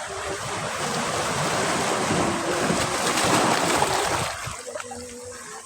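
Ocean surf: a wave breaking on the beach, the rush of water building to a peak about three seconds in and then dying away quickly a little after four seconds.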